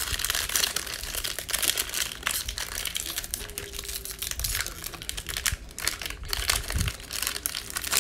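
Silver foil wrapper of a Panini Mosaic football hobby pack crinkling continuously as it is handled and pulled open by hand, with a couple of soft low bumps.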